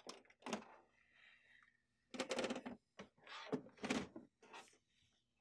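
Faint handling noises from an HP LaserJet Pro MFP M127fn laser printer's plastic body being turned around and slid on a wooden tabletop. A few light clicks come first, then two longer scraping sounds, about two seconds in and again about three and a half seconds in.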